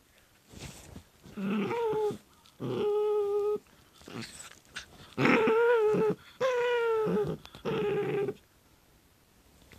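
Shiba Inu puppy making odd, excited play vocalisations while mouthing a hand: five drawn-out, whining calls of about a second each, level in pitch, with short gaps between them.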